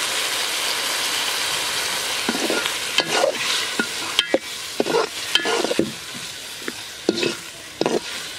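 Freshly added water sizzling in hot oil in a metal pot of fried onions, the sizzle dying down, while a metal ladle stirs and scrapes against the pot with a series of clinks from about three seconds in.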